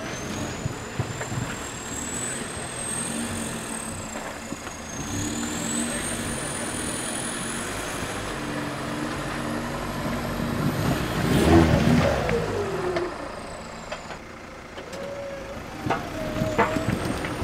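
Engine of a caged offroad 4x4 working under load as it crawls up over boulders, the revs rising and falling, with a thin high whine that rises and falls too. It is loudest about two thirds of the way through, then the revs drop away.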